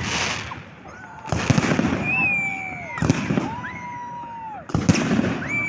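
Fireworks salute: three heavy bangs of shells bursting, about one and a half seconds apart, each with a long rumbling echo. Between the bangs, drawn-out tones hold and then slide down.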